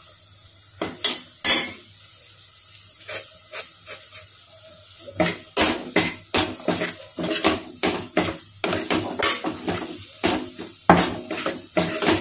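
Steel ladle stirring a thick spice paste in a metal pot. There are a few scattered knocks in the first four seconds, then from about five seconds in a quick, irregular run of scrapes and clinks of ladle against pot.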